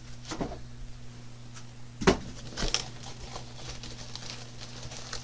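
Packing being handled: a styrofoam insert lifted out and the cardboard flap of a laptop box moved, giving a few scattered knocks and scrapes, the loudest about two seconds in. A steady low hum sits underneath.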